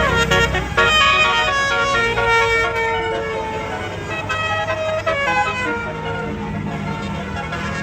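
Tourist bus's basuri horn, a set of electric multi-tone trumpet horns, playing a stepping melody of several notes at once, with the bus's engine rumbling underneath.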